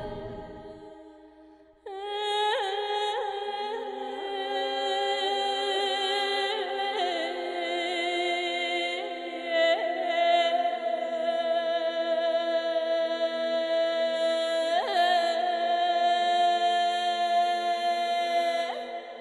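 Slow background music made of long, held notes with a chant-like quality. One passage fades away, and a new one starts about two seconds in.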